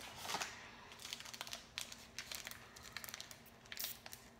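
Small snack wrapper of a Pepero pack crinkling in scattered sharp crackles as it is handled and worked open by hand.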